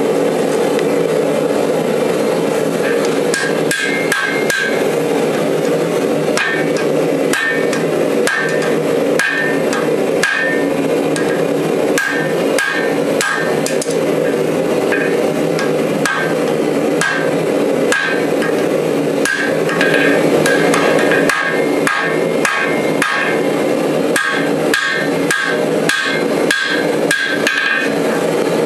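Hand hammer striking a red-hot bar of 5160 steel on an anvil, about two blows a second, many of them with a short bright ring, as the bar is drawn out and tapered.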